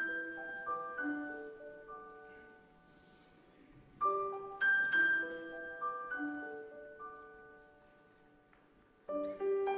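Music: a gentle melody of struck, ringing notes that fade after each strike. The same phrase starts over about every five seconds.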